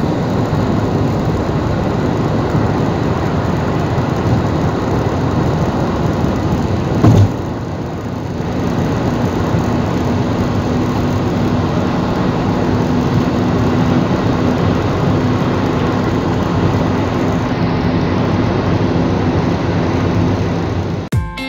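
Steady road and engine noise of a car driving along a highway, heard from inside the cabin, with one short thump about seven seconds in.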